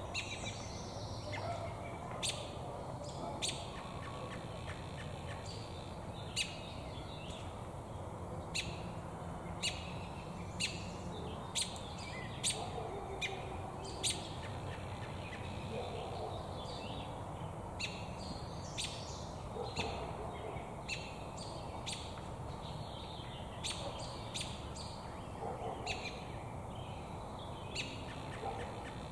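American robin giving short, sharp chirps with its bill full of damselflies. The chirps come irregularly, many in a row, sometimes in quick runs.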